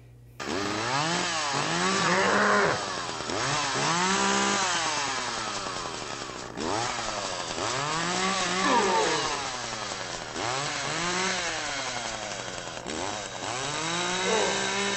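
Chainsaw revving sound effect of a Leatherface animatronic, played back from its product video. It starts suddenly about half a second in, and the engine pitch swings up and down again and again, roughly every two seconds.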